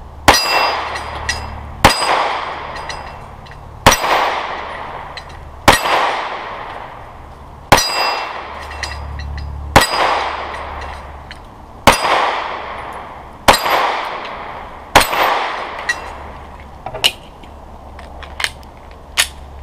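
Nine shots from an original 1952 Colt Commander pistol in 9mm, fired slowly about every two seconds, each crack trailing off in a long echo. A few lighter clicks follow near the end.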